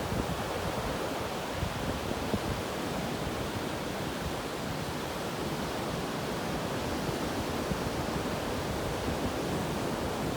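Ocean surf washing in a steady, continuous rush, with wind rumbling on the microphone.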